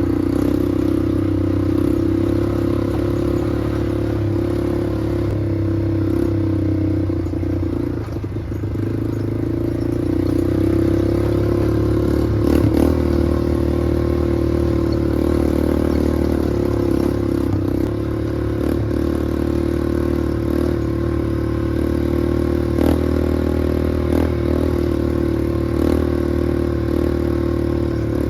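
Small off-road vehicle engine running steadily, easing off briefly about eight seconds in, with a few sharp knocks and rattles.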